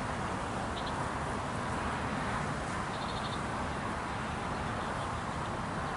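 Honeybees of a defensive, partly Africanized colony buzzing around an opened hive in a steady hum, with a few faint high bird chirps about a second in and again around three seconds in.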